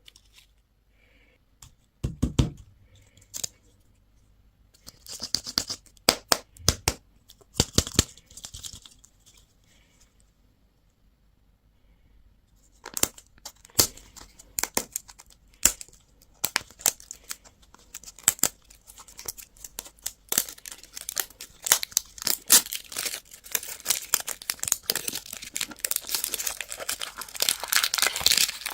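Crinkly candy wrapper being torn open and crumpled by hand: a knock about two seconds in, a few crackling bursts, a short pause, then steady tearing and crinkling that gets busier toward the end.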